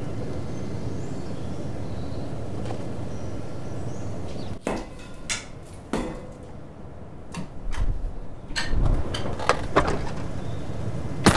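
A steady low rumble that cuts off suddenly about four and a half seconds in, followed by a series of knocks and clicks, irregularly spaced and louder near the end.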